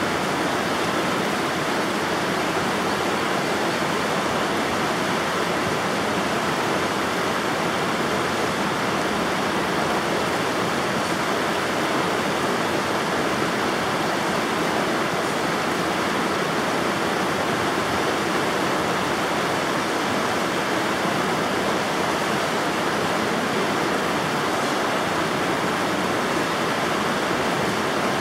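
River water flowing, a steady, unbroken sound of moving water.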